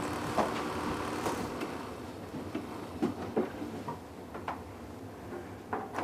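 Faint steady hum that fades away in the first couple of seconds, then scattered light clicks and knocks as refrigerator parts are handled.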